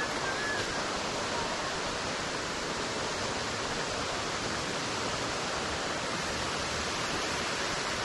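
Waterfall pouring into a creek pool, a steady rushing hiss of falling water.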